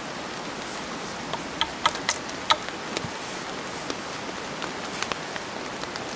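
Steady rain falling on a poncho pitched as a tarp overhead, with scattered sharp ticks, the loudest three close together about two seconds in.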